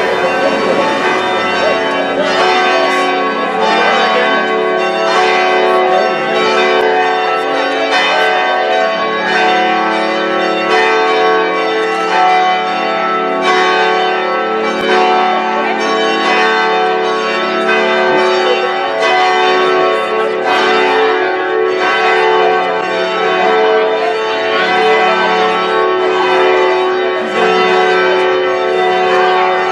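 Church bells ringing a peal, struck again and again, each stroke's tone ringing on and overlapping the next.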